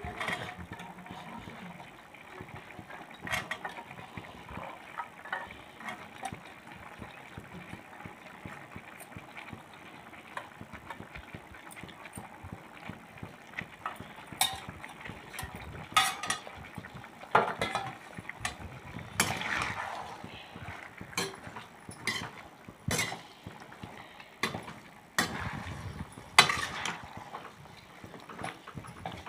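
Perforated metal skimmer clinking and scraping against a metal kadhai as peas and carrots are stirred, over a steady low hiss. The clinks are sparse at first and come thicker from about halfway.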